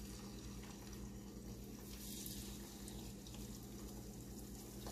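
Marinated chicken pieces sizzling faintly in shallow hot oil in a frying pan, a steady hiss with a few small crackles, over a low steady hum.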